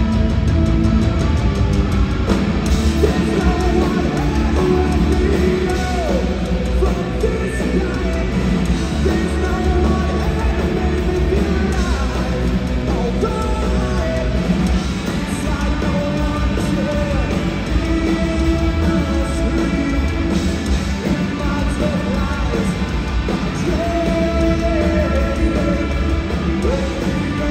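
Punk rock band playing live, a singer's vocals over the full band.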